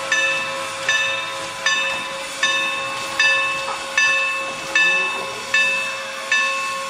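Bell of Norfolk & Western No. 475, a steam locomotive, ringing steadily as it moves, about one clang every three-quarters of a second, each ring fading before the next. A light hiss of steam runs underneath.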